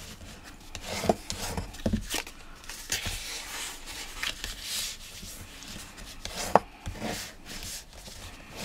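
Cardstock being folded along its score lines and burnished with a bone folder: irregular paper rustling and rubbing, with a few sharp taps, the sharpest about six and a half seconds in.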